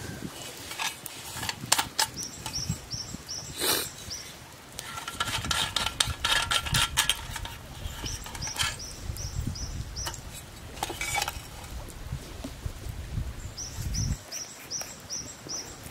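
Metal clicks, knocks and clatter as a hurricane lantern is handled and worked on by hand, with a dense run of clattering about five seconds in. A bird calls three times in short runs of about six quick, high chirps.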